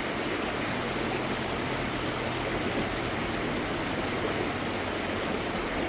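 Water running over a small falls at low water: a steady, even rush.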